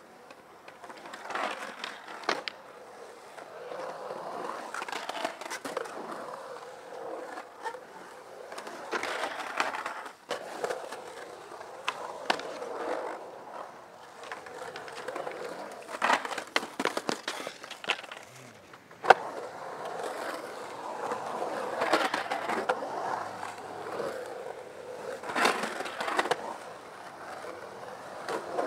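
Skateboard wheels rolling and carving on the concrete of a skatepark bowl, a rushing noise that swells and fades with each pass, broken by sharp clacks of the board striking the concrete. The loudest is a single sharp crack about two-thirds of the way through.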